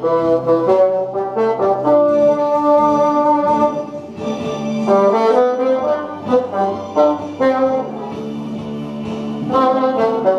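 Bassoon playing a flowing melody of held and moving notes.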